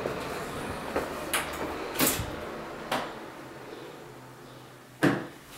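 An old wooden entrance door with a brass lever handle being handled: a few light clicks and knocks, then one heavy thump near the end as the door shuts.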